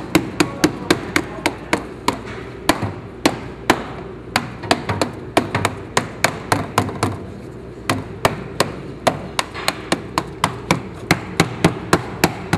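Soft rubber mallet tapping repeatedly on the underbody heat shield of a BMW E92 M3, about four blows a second with a couple of brief pauses. The shield is being hammered up flush with the body so the high-flow catalytic converters will not rub or vibrate against it.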